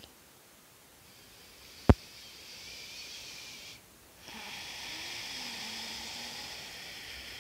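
A person breathing deeply while lying at rest: a slow inhale, a short pause, then a longer exhale. There is one sharp click about two seconds in.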